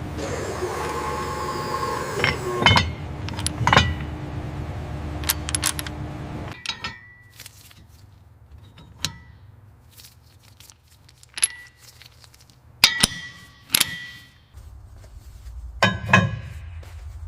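Metal tools and parts clinking and tapping, over a steady hum that stops about six and a half seconds in; after that the clinks come one at a time with gaps between.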